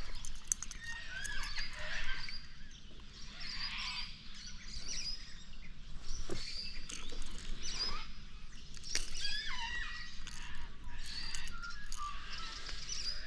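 Several birds chirping and calling, short gliding notes one after another, with a few faint clicks.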